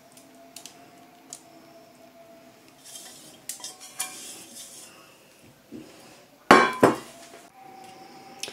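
Light clicks and rustles of kitchen handling as vegetable oil is poured from a plastic container over potato wedges on a foil-lined metal baking tray, over a faint steady hum. About six and a half seconds in come two loud clattering knocks of kitchenware in quick succession.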